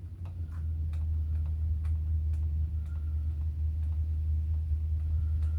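Steady low hum with a few faint, light clicks scattered through it, as the Echo SRM-230 trimmer's throttle trigger and cable are worked by hand.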